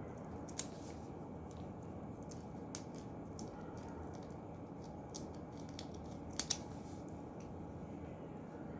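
A few small sharp clicks, a double one about six and a half seconds in being the loudest, over a steady low background hiss.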